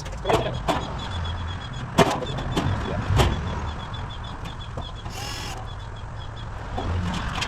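A few sharp knocks and clanks from handling the galvanized-steel panels of a flat-pack chicken nesting box during assembly, over a steady low hum. A short hiss comes a little after halfway.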